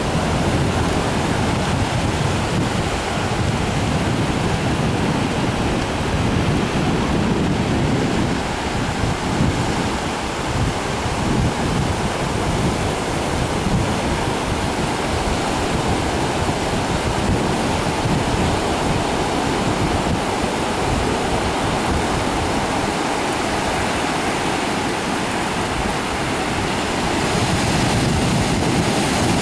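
Ocean surf breaking and washing up a flat beach, a steady wash of noise, with wind buffeting the microphone in a low, uneven rumble.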